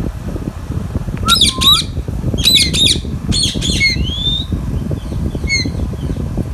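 Indian ringneck parrot squawking: three harsh, swooping screech bursts about a second apart, then a rising whistle and a short call near the end, over a steady low rumble.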